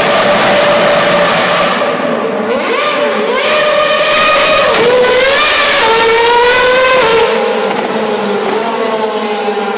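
McLaren MP4-26 Formula One car's Mercedes V8 engine at high revs, its pitch held steady at first, then rising and falling repeatedly as it is revved and accelerated past. After about seven seconds the sound turns lower in pitch and duller as the car goes away.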